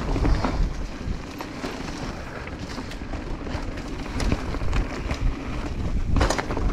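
Mountain bike rolling fast down a dirt trail covered in dry leaves: tyres running over leaves and dirt, with the bike knocking and rattling over the bumps and wind buffeting the microphone. A louder cluster of knocks comes near the end.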